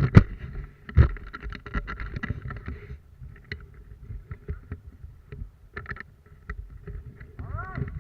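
Low rumbling noise on the microphone with many scattered sharp clicks and knocks, the loudest right at the start and about a second in. A short arching whistle-like call sounds near the end.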